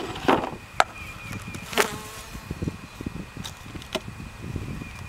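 Wooden beehive equipment being handled: a handful of sharp knocks and clacks, irregularly spaced, over a low rustle.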